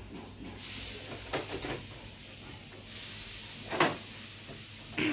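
Plastic mesh air filters being slid back into a split air conditioner's indoor unit: scraping plastic with several sharp clicks and knocks as they seat.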